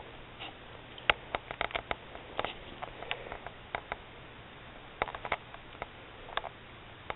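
Border collie sniffing at the grass: short quick sniffs in small scattered bursts with quieter gaps between.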